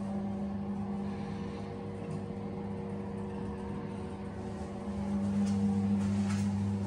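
Steady low machine-like hum with a few faint taps near the end.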